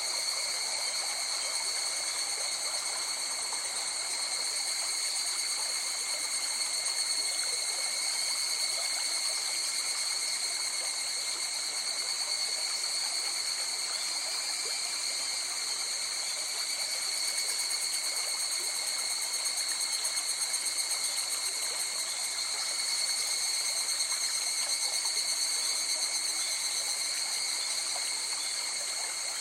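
River water flowing in a steady rush, with several steady, high-pitched shrill tones held over it.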